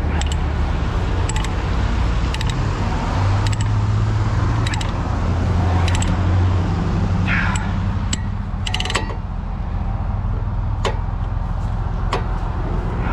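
Heavy truck's diesel engine and road noise droning inside the cab while driving, the engine note swelling twice in the first half, with irregular sharp clicks and a squeak from the cab.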